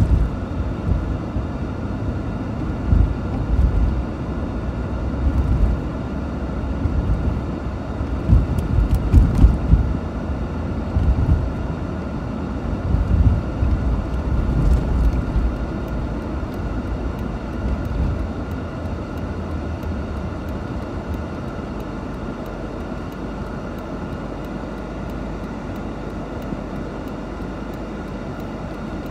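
In-cabin sound of a 1989 Mercedes-Benz 560 SEL driving: a low rumble of its 5.6-litre V8 and road noise, with uneven low thumps over the first half, settling to a steadier, quieter hum in the last ten seconds.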